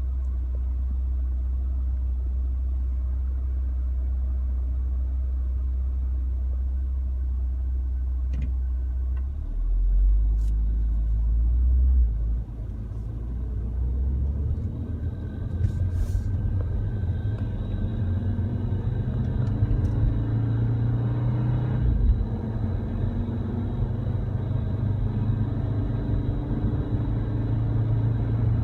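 Low, steady rumble inside an Audi RS Q3, recorded for an abnormal noise from its air-conditioning duct. The drone shifts pitch about a third of the way in and grows busier after that. A faint steady high tone joins about halfway through.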